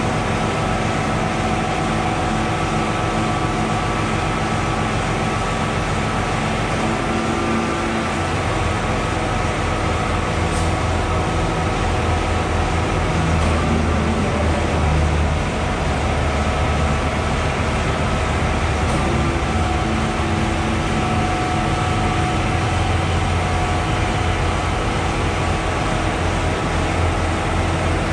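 Concrete boom pump truck's engine and hydraulics running steadily: a continuous low rumble with several steady humming tones over it.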